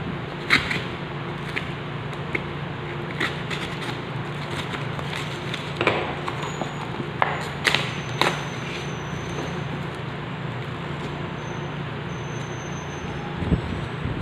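A parcel's plastic courier mailer and paper wrapping being cut open with a utility knife and torn off by hand: scattered sharp crackles, rips and rustles, over a steady low hum.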